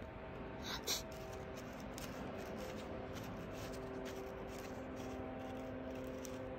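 Quiet room with a faint steady hum and a few soft clicks and rustles about a second in.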